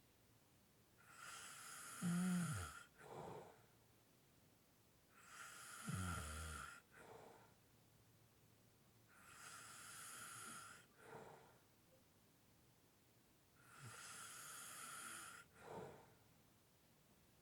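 A sleeping person snoring lightly and breathing heavily: four slow breaths about four seconds apart, each a long breathy inhale and a shorter exhale. The first two inhales carry a low snore rattle; the later ones are mostly breath.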